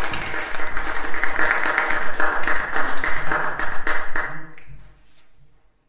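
Audience applauding: dense clapping that drops off about four and a half seconds in and dies away soon after.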